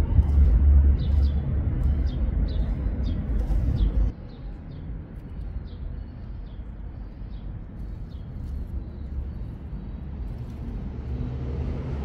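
Outdoor ambience: a heavy low rumble that drops away abruptly about four seconds in, leaving quieter background noise. Through most of it a small bird chirps in short, high, falling notes about twice a second.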